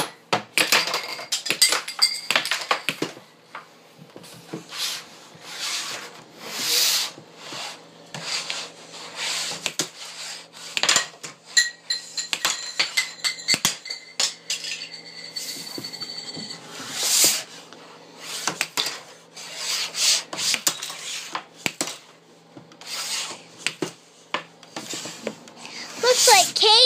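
Air hockey pucks and mallets being hit about on the table, irregular clacks and knocks of hard plastic, with pucks striking the pile of plastic toys blocking the goal. A steady low hum runs underneath.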